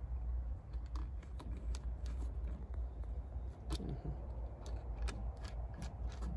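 Scattered light clicks and taps from handling a plastic oil bottle as its cap is screwed back on, over a steady low rumble of wind on the microphone.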